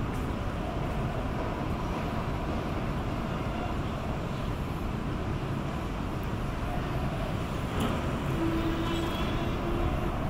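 Steady low rumble of outdoor street ambience: distant traffic, with a faint hum rising briefly near the end.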